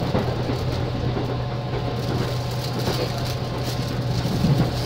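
Sound inside a JR East 205 series electric commuter train car: a steady low hum over an even rumble, with small scattered clicks and rattles.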